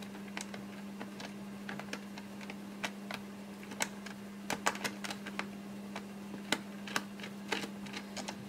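Small, irregular clicks and ticks of a screwdriver and loose screws being worked out of a laptop's plastic base, over a steady low hum.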